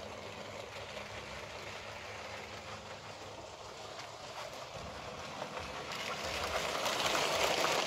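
Battery-powered Lego City passenger train (Powered Up) running over plastic Lego track: a steady whirring rattle of motor and wheels that grows louder over the last couple of seconds as the train nears.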